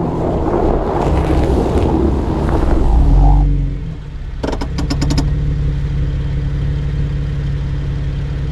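Vehicle driving with engine and road noise, then settling; a brief rapid rattle of clicks about four and a half seconds in, then the engine idles steadily.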